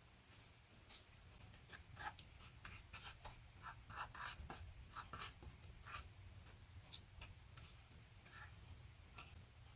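A run of short, light, irregular scrapes and rustles from hands and a utensil working on food during kitchen preparation. It is busiest in the first half and thins out after about six seconds.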